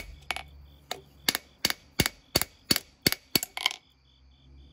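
Hand hammer striking hot leaf-spring steel on an anvil, about ten sharp blows at roughly three a second, straightening the tip of a knife blade that is rolling out; the blows stop near the end, leaving crickets chirping.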